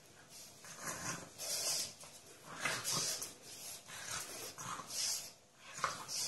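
A pug huffing and snorting through its nose in short, noisy bursts, about one or two a second, as it noses at something on the floor.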